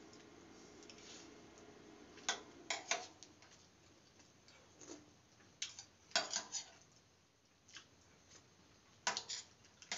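Eating by hand from a stainless-steel compartment plate: scattered sharp clicks and clinks in small clusters, from fingers working the rice against the steel and from chewing. A faint low hum is under the first couple of seconds.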